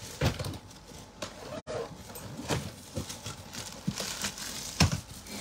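A hard-shell suitcase being tipped and handled on a tiled floor: several irregular knocks and clatters from the shell and its spinner wheels.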